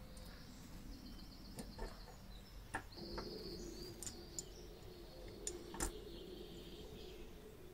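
A few small, sharp metal clicks as a coil spring and brass screws are fitted into a small cast-metal mechanism, the loudest near the end. Birds chirp and trill faintly in the background.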